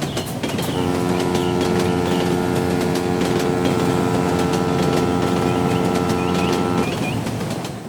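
Loud running of a machine or vehicle sound effect: a dense noisy rumble with a steady droning hum of several held notes that comes in about a second in and stops about a second before the end, with faint short chirps above.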